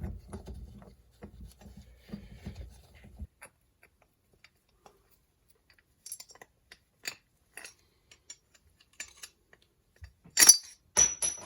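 Metal parts of a Honda CR250 two-stroke's exhaust power valve clinking and tapping as they are worked out of the cylinder, in light scattered clicks. Near the end come a few sharp metallic clinks that ring briefly.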